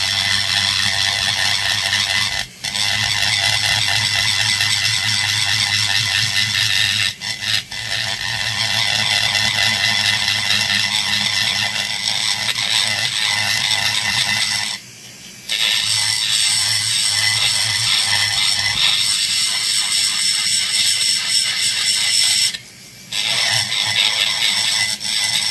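High-speed rotary tool with a carbide burr grinding into the soft metal of a chainsaw crankcase, to trench the transfer ports. It runs with a steady whine and cuts out briefly four times.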